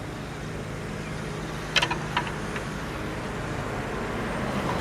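Steady low hum of a vehicle engine from the road, growing slowly louder toward the end, with three or four sharp clicks about two seconds in.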